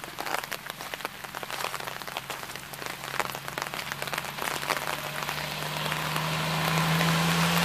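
Rain falling, with many irregular sharp ticks of drops hitting close by. A low steady hum grows louder near the end.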